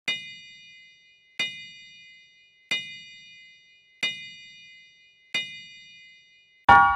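Logo sting of struck metallic chime tones: five identical high bell-like strikes, evenly spaced about 1.3 s apart, each ringing out and fading. Near the end comes a louder, lower bell-like strike that keeps ringing.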